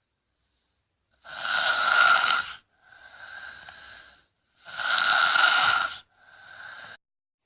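A child snoring heavily in sleep. There are two breaths, each a loud snore followed by a softer one, about three and a half seconds apart.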